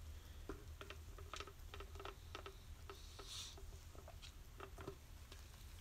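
Faint, irregular light clicks and ticks, many of them over about four seconds, with a brief soft hiss about three and a half seconds in.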